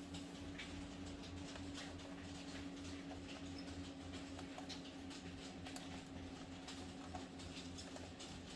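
Faint, scattered light clicks and taps of a screwdriver working small laptop screws and handling the plastic parts, over a steady low hum.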